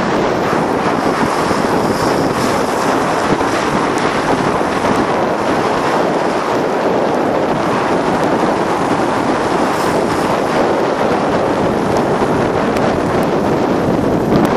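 Loud, steady rush of wind on the microphone from a moving vehicle, with the vehicle's running noise underneath.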